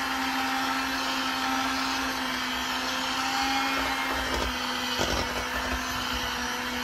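Electric blender motor running steadily on its slow setting, a constant hum as it blends garlic mashed potatoes, with a couple of low bumps about four and five seconds in.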